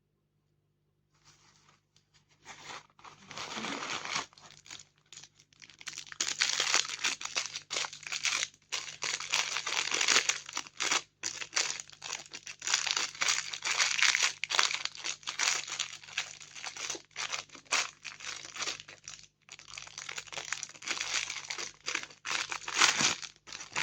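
Packaging of a hand exerciser being crinkled and torn open by hand, in dense, irregular rustling that starts a couple of seconds in.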